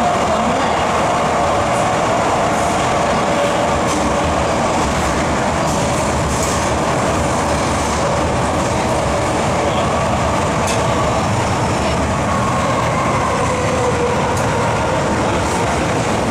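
MTR M-Train electric multiple unit running through a tunnel, heard from inside the car: a steady rumble of wheels on rail with a faint whine held at a few fixed pitches.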